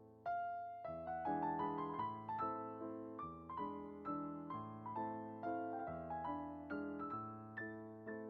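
Soft solo piano background music: gentle chords and a slow melody, each note struck and left to fade.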